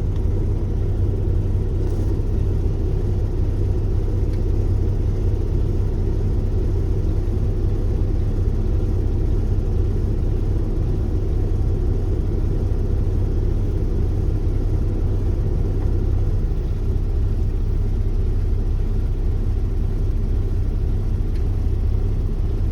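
Truck engine running steadily while its air compressor builds air-tank pressure from 85 to 100 psi, a steady low rumble. The build-up takes about 29 seconds, showing the compressor is working normally.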